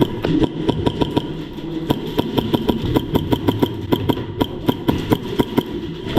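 Airsoft gunfire: a rapid string of sharp cracks, several a second, over a steady low rumble.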